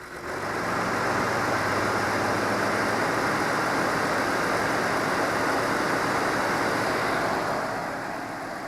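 2016 Ford F-150 running just after start-up, with a loud, steady rush of air over a low engine hum. The rush comes on suddenly and eases off near the end.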